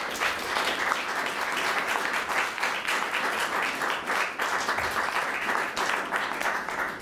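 A small audience clapping steadily, many separate hand claps blending together.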